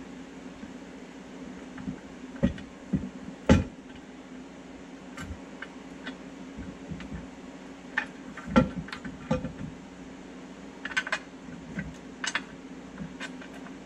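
Metal front differential skid plate knocking and clinking against a Jeep Wrangler's front differential and axle as it is wiggled into place, in scattered knocks, the loudest about three and a half seconds in and again past the middle. A steady low hum runs underneath.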